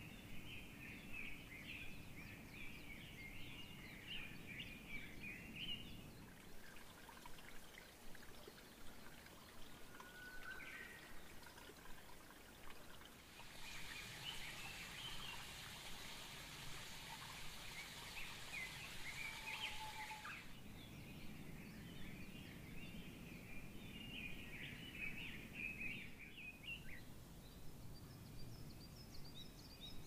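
Outdoor ambience of small birds singing and chirping, with a steady hiss joining for several seconds in the middle.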